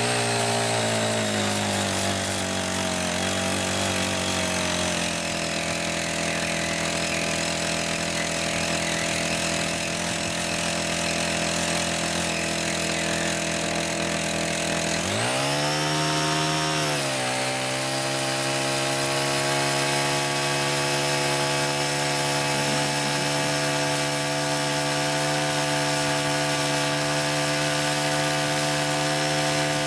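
Small Honda GX35 four-stroke engine of a mini garden tiller running steadily. Its speed sags over the first few seconds, then about halfway through it revs up sharply, holds higher for about two seconds, and drops back to a steady speed.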